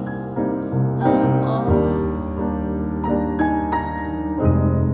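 Live music: a grand piano plays chords and a melody over a held low bass note that shifts twice. No singing.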